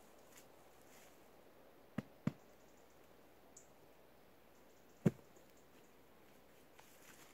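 Three dull knocks over faint outdoor background hiss: two in quick succession about two seconds in, and a single louder one about five seconds in.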